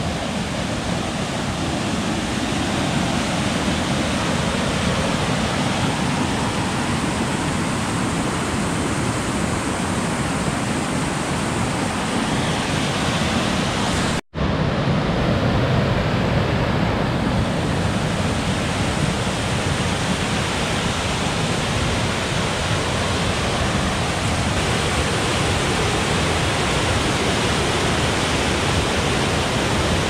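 Steady rush of whitewater rapids and falls on a river. The sound cuts out for an instant about halfway through.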